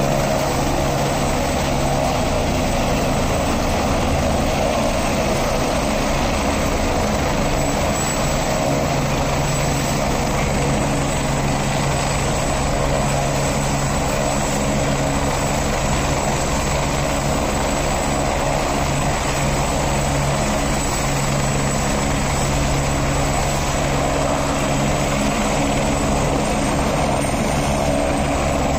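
Helicopter idling on the pad, its engine and rotor running steadily with a constant hum and whine.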